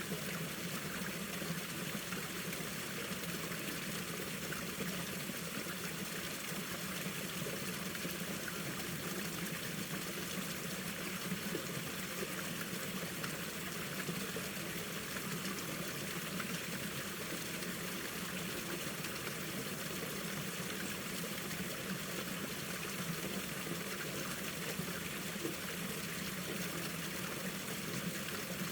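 Mountain stream flowing over rocks in a valley, a steady even rush and trickle of water.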